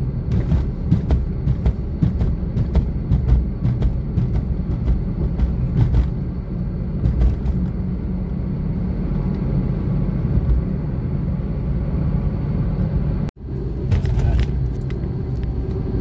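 A vehicle's steady road and engine rumble while driving, with many small clicks and knocks over the first six seconds. The sound drops out for a split second about thirteen seconds in, then the rumble resumes.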